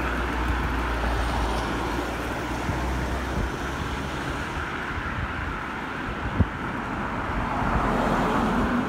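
Street traffic: a motor vehicle's engine running close by, with a steady low hum that fades out after about three seconds, over a continuous rush of road noise. A single sharp click about six seconds in.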